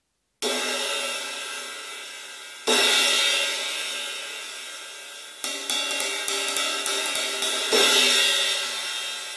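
Old 18-inch A. Zildjian crash/ride cymbal fitted with eight nickel-plated steel split rivets, struck and left ringing with the rivets sizzling. A hit comes about half a second in, a louder one near three seconds, a run of quick ride taps around six seconds, then a loud crash near eight seconds.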